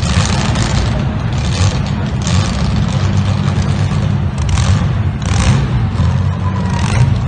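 Demolition derby cars' engines running hard in a loud, steady low rumble, with several short crashing and scraping noises of cars hitting each other.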